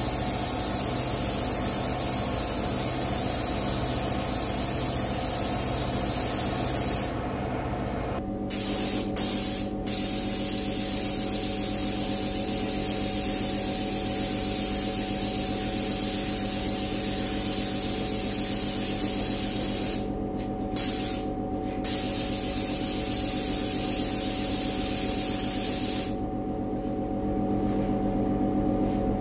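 Gravity-feed compressed-air spray gun spraying a second coat of high-build primer: a steady hiss of air and paint, broken off for a moment several times (about a quarter of the way in, about two-thirds in, and near the end) between passes, over a steady hum.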